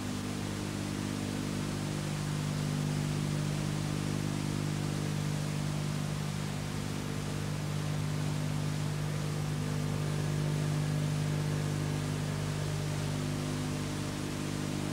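Steady electrical hum under an even hiss, with no other sound. The hum is a low buzz made of several tones, the strongest about 150 Hz.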